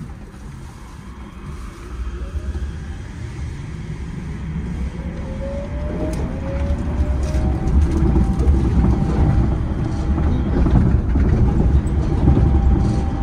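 Yurikamome rubber-tyred automated guideway train pulling away from a station and accelerating. A motor whine rises in pitch over the first several seconds and then holds steady, over a rumble that grows steadily louder as speed builds.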